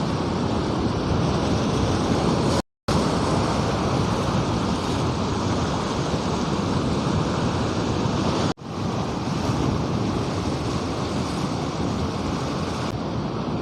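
Sea waves and surf washing steadily, with wind on the microphone; the sea is running a little rough. The sound drops out for a moment near the start and dips sharply again about two-thirds of the way through.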